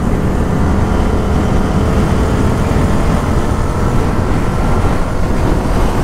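Motorcycle riding at a steady pace, the engine running steadily under heavy wind rush on the microphone. Its exhaust is without its dB killer baffle, which came off earlier in the ride.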